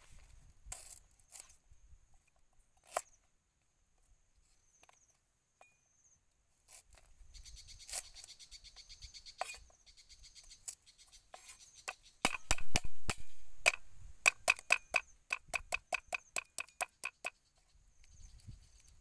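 Cleaver chopping lemongrass on a round wooden chopping board. A few separate cuts come first, then a quick run of chops for several seconds near the end, about four a second.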